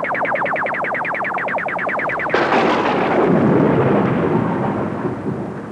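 Cartoon sound effects: a fast electronic warbling pulse, about ten pulses a second, cuts off about two seconds in. A sudden loud thunderclap follows, with rain noise, and rumbles away slowly.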